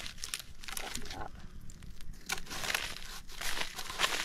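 Small campfire of sticks crackling, with irregular sharp pops.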